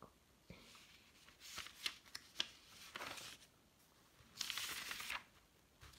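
Pages of a spiral-bound sketchbook being turned by hand: a few soft paper rustles and flaps, the longest and loudest about four and a half seconds in.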